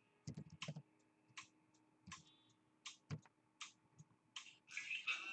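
Faint, irregular clicks and taps of a laptop being operated, keys and mouse, a few tenths of a second to a second apart. Music comes in near the end.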